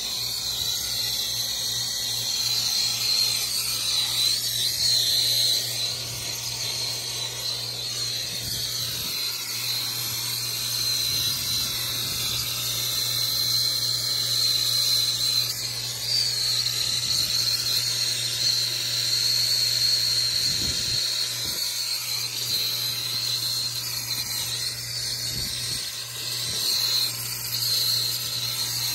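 Brazing torch flame hissing steadily as it heats a copper refrigerant-line joint, with a high steady tone in the hiss and a low steady hum underneath.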